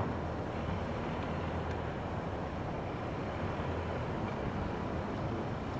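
Car driving slowly, a steady low rumble of engine and tyres on concrete, picked up by a camera mounted on the outside of the car.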